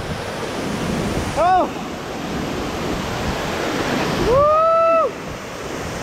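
Waterfall pouring into a pool: a steady rush of falling water. A person's voice rises over it twice, with a short call about one and a half seconds in and a longer held call about four seconds in.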